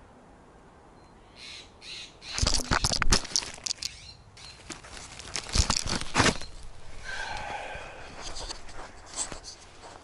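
The camera's own microphone picking up knocks and crackling rustles of dry leaves as the camera is knocked over onto the leaf-covered ground, loudest in two clusters about two to three seconds in and around six seconds in, followed by softer rustling.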